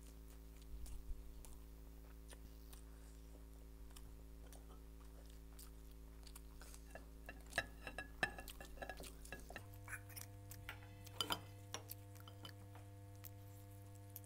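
Faint eating sounds: chewing and lip smacks, with a few small clinks of a steel bowl and spoon being handled in the second half. A steady low hum runs underneath and changes pitch about two-thirds of the way through.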